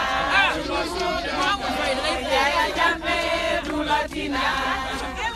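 A crowd of voices singing and chanting together, with many voices overlapping and some notes held.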